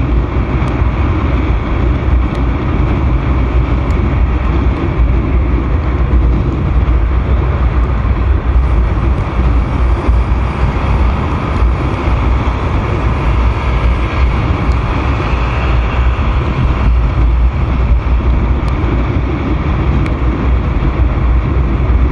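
Steady wind rush on the microphone mixed with the engine and road noise of a Honda Vario 125 scooter cruising at speed.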